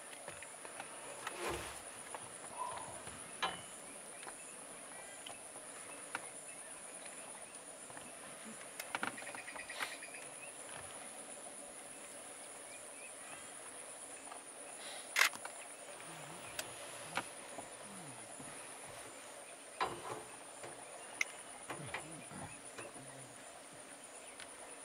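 A steady high-pitched chirring of crickets or other insects. Scattered short sharp clicks and light splashes sound over it, the loudest a sharp snap about fifteen seconds in.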